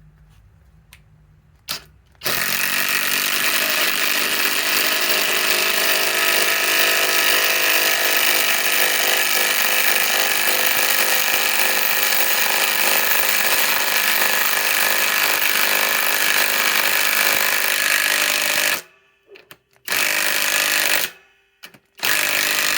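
Cordless impact driver hammering a large lag screw into wood. A brief blip about two seconds in, then one long continuous run of impacting for about sixteen seconds, then two short bursts near the end.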